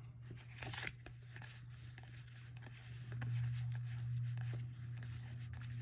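Magic: The Gathering cards sliding and rubbing against each other as a stack is flipped through by hand, with small scattered ticks. A low steady hum sits underneath and grows louder about halfway through.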